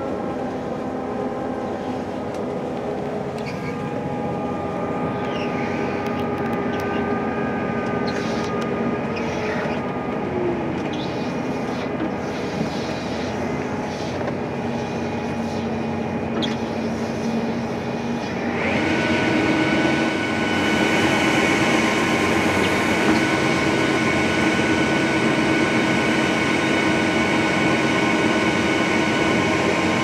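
A CLAAS Lexion 7500 combine running, heard from inside the cab: a steady machine hum with several held tones. A little past halfway it steps up louder, with a new steady whine, as the unloading auger engages and unloads corn into the truck.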